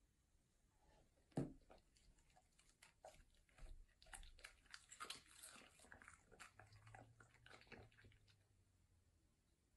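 Faint sounds of a German Shepherd chewing a piece of pork loin: wet, clicky smacking and crunching that goes on for several seconds. It is preceded by a single thump about a second and a half in.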